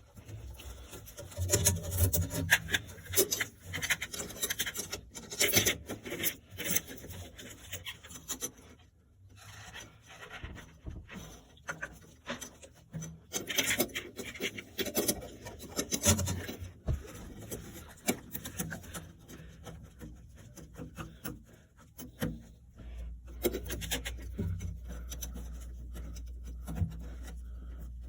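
Irregular rubbing and scraping with scattered knocks, as of parts and tools being handled. A steady low hum sets in about three-quarters of the way through.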